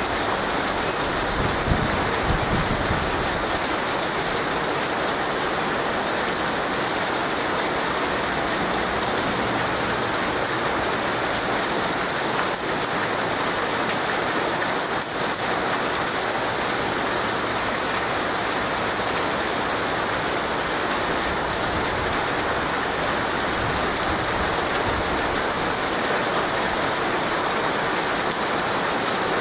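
Heavy thunderstorm rain pouring down in a steady, even downpour.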